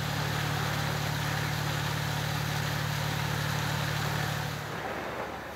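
An engine running steadily at idle, a low even hum that drops away about four and a half seconds in.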